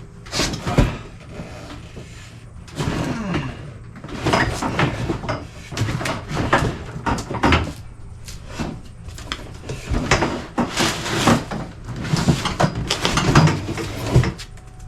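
Cardboard scraping and rustling, with irregular bumps and knocks, as a heavy battery lawnmower is hauled out of its shipping box.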